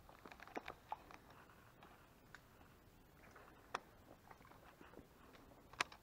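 Near silence broken by faint scattered clicks and light taps: a quick cluster in the first second, then a few single sharper ticks, the loudest near the end.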